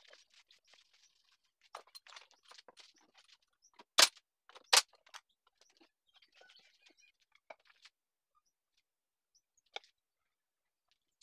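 Wooden pieces being handled on a workbench: light rustling and taps, with two sharp loud knocks about four seconds in, under a second apart, and a single small click near the end.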